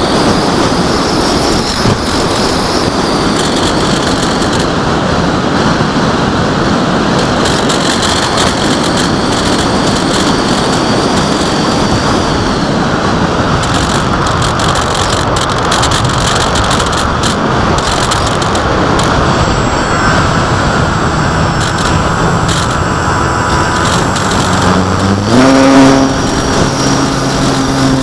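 Strong wind buffeting the microphone in a steady loud rush. About 25 s in, an engine speeds up and then runs at a steady pitch.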